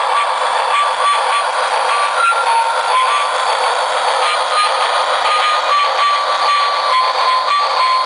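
Sensor-activated Christmas wreath toy steam train running, its small speaker playing a loud, steady hissing, chugging locomotive sound effect with a simple beeping tune stepping up and down over it.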